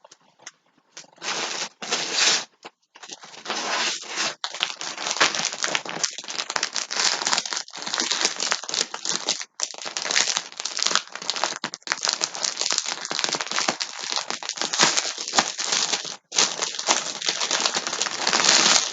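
Plastic packaging crinkling and crackling as yarn skeins are handled and unwrapped, continuous with a few brief pauses.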